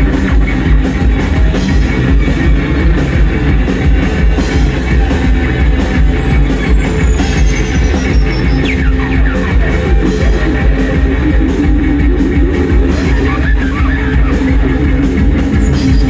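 Live band playing loud, droning noise rock on drums, guitar, keyboards and synthesizers, dense and unbroken. Now and then thin high tones glide downward in pitch.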